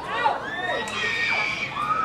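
Young voices shouting and cheering over one another. Several high calls are held for about a second and overlap.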